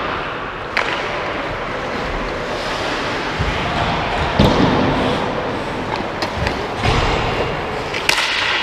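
Ice hockey play in a rink: a steady scrape of skates on the ice, with scattered sharp knocks of sticks and puck and a few low thuds. The sharpest knocks come about a second in and near the end.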